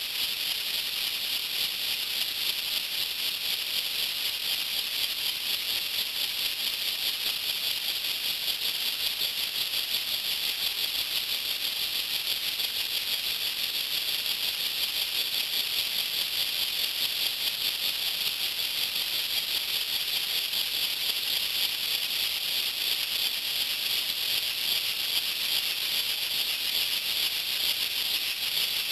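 Homemade model elbow engine running steadily: a fast, even rattle with hiss, unchanging throughout.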